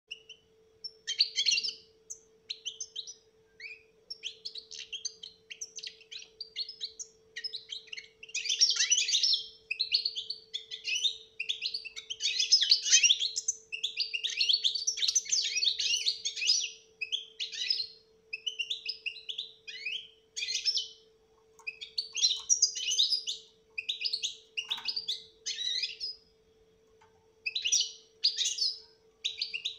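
European goldfinch singing its rapid, twittering song in bursts of varied chirps and trills with short pauses between phrases.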